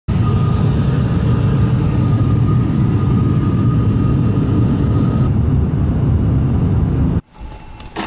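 Steady engine and airflow noise inside a passenger aircraft cabin in flight, with a constant high whine over it. It cuts off suddenly about seven seconds in to a much quieter open-air background.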